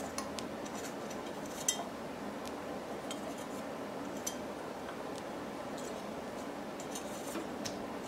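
Scattered small metallic clicks and taps from a screwdriver working the mounting screws of a Noctua NH-U14S tower CPU heatsink, over a steady low background hum. The sharpest click comes a little under two seconds in.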